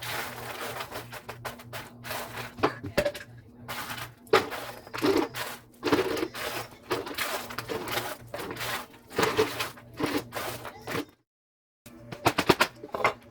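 Kitchen food-preparation noise from working bread for crunchy bread: repeated irregular scraping and crackling with sharp clicks, over a steady low hum. It stops briefly about eleven seconds in, then a quick run of clicks follows.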